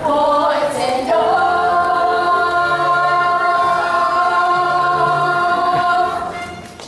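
Show-tune singing with musical accompaniment. The voice holds one long note from about a second in, then fades out near the end.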